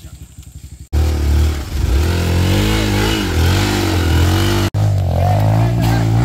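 Motorcycle engine with a low, even putter that breaks off suddenly about a second in. It then runs loud under hard throttle, its pitch rising and falling as the revs change, with a brief dropout past the middle.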